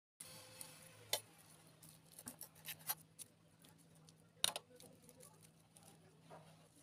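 A bundle of lemongrass stalks being handled and set down on a countertop: scattered taps, rustles and clicks, the sharpest about a second in and the loudest about four and a half seconds in, over a faint steady hum.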